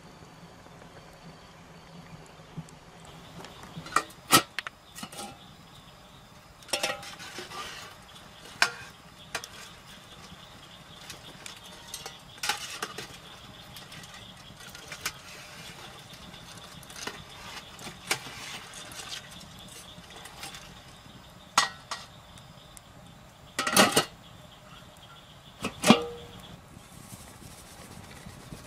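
A stirring utensil knocking against a speckled enamelware stockpot of boiling crawfish, about seven sharp, separate clinks spread out over a low steady hiss.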